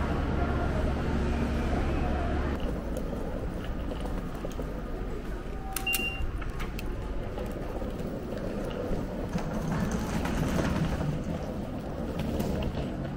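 Busy station and terminal ambience with a low hum that stops a couple of seconds in. About six seconds in, an automatic ticket gate gives a short beep as it reads a tapped IC card.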